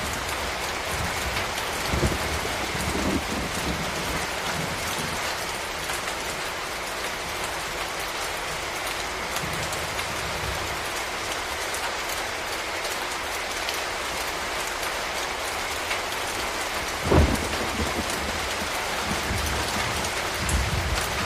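Tropical rain falling steadily with an even hiss. A few short low thumps come through it, the loudest about 17 seconds in.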